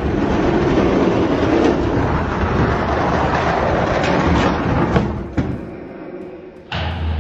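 Hot Wheels diecast monster trucks rolling fast down a long orange plastic track, a continuous rumbling clatter that fades out about five seconds in. There are a couple of sharp knocks as they reach the finish.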